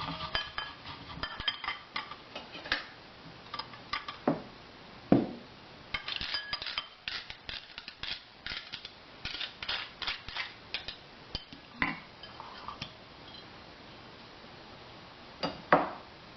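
Kitchen utensils clinking and knocking against dishes as grated ginger is handled: an irregular run of light taps and clinks, with a few louder knocks.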